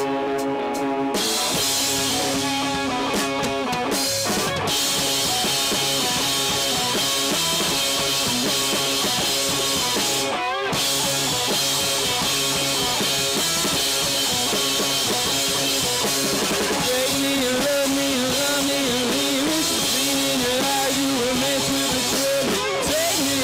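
Live rock band playing: two electric guitars, electric bass and a drum kit, with a brief break in the cymbals about ten seconds in.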